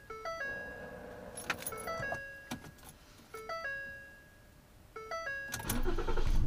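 Ford Explorer dashboard chime repeating a short stepped figure of a few notes about once a second, with a few sharp clicks from the ignition key being turned. Near the end the engine cranks and starts into a low rumble.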